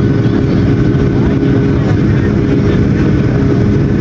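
Airliner's turbofan engines at high thrust on the takeoff run, heard inside the cabin: a loud, steady rumble with a held hum and a fainter higher whine at constant pitch.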